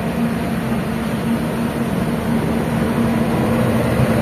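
A steady engine drone with a constant low hum, running evenly with no change in speed.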